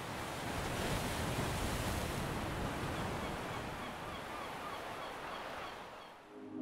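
Sea waves washing in, a steady surf hiss that swells about a second in and fades out near the end.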